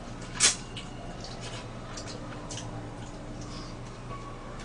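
Wet eating sounds from close up: lip smacks and chewing while gnawing meat off a braised pork rib bone, with one louder smack about half a second in.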